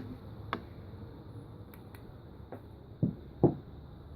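A few short knocks and clicks of handling, the clearest two close together about three seconds in, over a steady low background hum.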